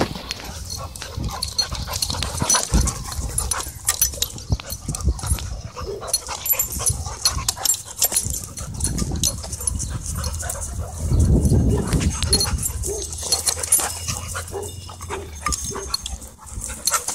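Dogs play-fighting at close range: dog vocalising and scuffling with frequent short knocks, loudest about eleven seconds in.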